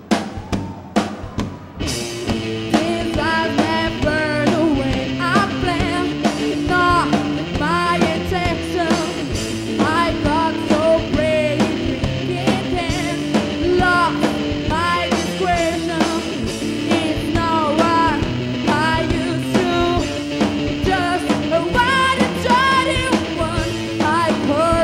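Rock band with a female lead singer, electric guitars and a drum kit: a few drum hits open, then about two seconds in the full band comes in under the sung melody.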